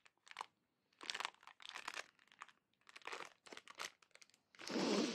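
Clear plastic packaging bag crinkling in irregular bursts as it is handled and opened, with a louder stretch of rustling near the end.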